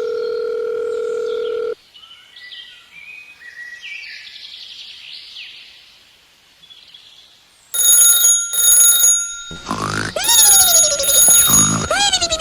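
A steady buzzing tone for nearly two seconds, then faint chirping sweeps. About eight seconds in, a loud alarm-bell ringing starts in short on-off pulses, joined by falling whistle-like glides.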